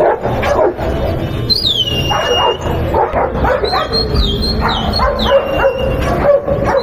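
Several dogs barking over and over, with high, falling cries heard several times.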